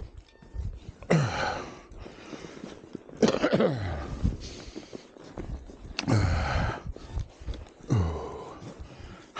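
A man breathing hard, with four heavy, breathy exhalations that each drop in pitch, spaced a couple of seconds apart.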